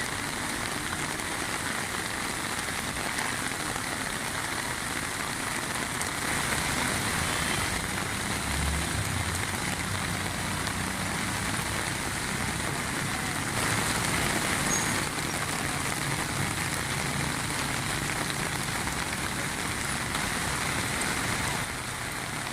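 Heavy rain falling steadily, a dense, continuous hiss. A low engine hum from a vehicle sits beneath it through the middle stretch.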